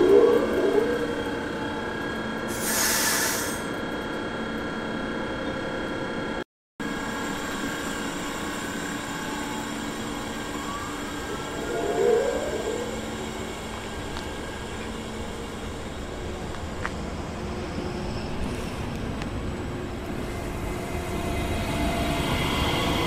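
Train at a station platform running with a steady hum of several tones, a short hiss about three seconds in, and brief squeals near the start and again about twelve seconds in.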